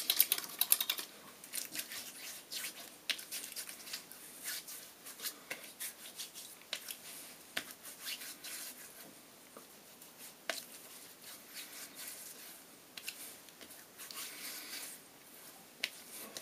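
Hands rubbing and patting a freshly shaved face: an uneven run of light slaps and scratchy rubs, busiest in the first second.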